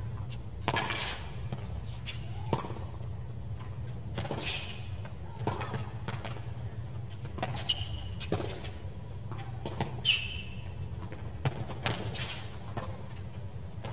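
Tennis rally on a hard court: racket strikes and ball bounces as sharp pops, roughly one a second, over a steady low hum, with a couple of short high squeaks.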